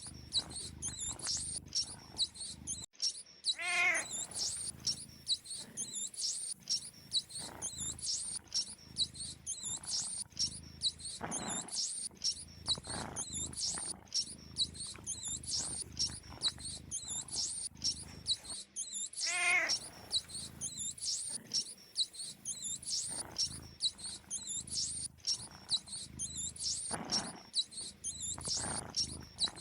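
Mice squeaking in a fast, unbroken run of short, high-pitched squeaks. Twice, a lower animal cry that drops in pitch cuts through the squeaking.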